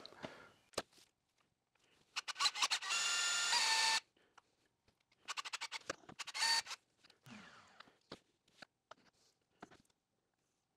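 Sped-up, cut-together clips of a power drill running in short bursts, its motor whine stopping abruptly, with scattered clicks and taps between the bursts.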